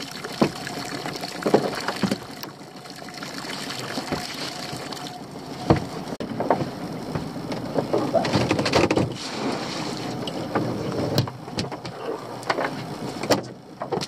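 Lobster pot being handled on a small boat's deck and gunwale: irregular knocks and clatter of the pot and gear, with a busy stretch of rustling and knocking past the middle. Near the end the pot and its rope go over the side into the sea.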